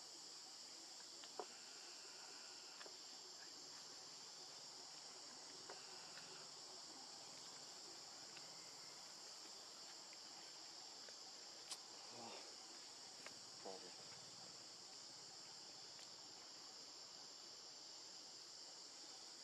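Faint, steady high-pitched insect chorus, with a few faint clicks, the sharpest about a second and a half in and another near the middle.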